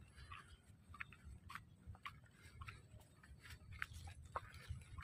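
Faint footsteps crunching on a dirt path strewn with dry leaves, about two short crackles a second, over a low rumble of wind or phone handling.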